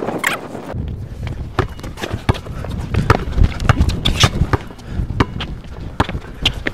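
A basketball being dribbled on an outdoor court, a run of sharp irregular bounces, mixed with running footsteps. A low rumble on the body-worn microphone starts about a second in.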